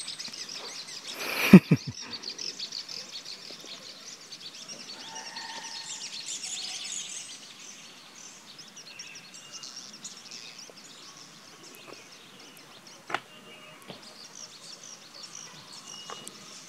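Forest birds chirping and calling over a dense high-pitched background chorus. A sudden loud thump about a second and a half in, and a single click later on.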